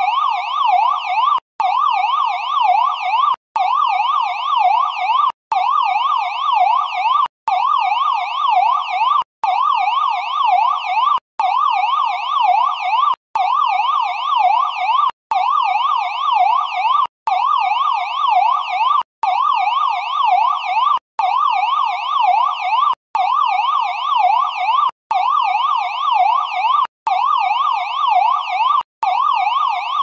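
Electronic police siren in a fast yelp, its pitch sweeping up and down several times a second. It is a looped recording that cuts out briefly about every two seconds.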